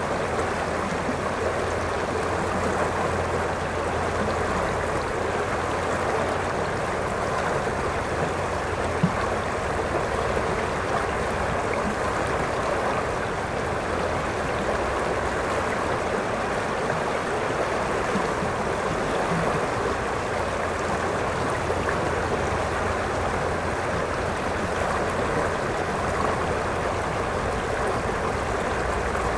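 River water rushing over a shallow, rocky riffle: a steady, even rush of flowing water. One brief tick about nine seconds in.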